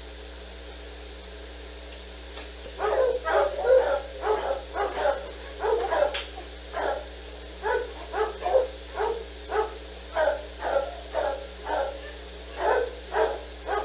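A dog barking over and over, about three barks a second, in runs with a couple of short pauses. It starts about three seconds in over a steady low hum.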